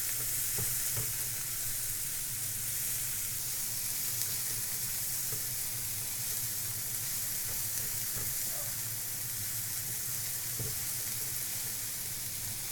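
Chopped onion and cumin seeds sizzling steadily in hot oil on a non-stick tawa, with a few light scrapes of a spatula as they are stirred.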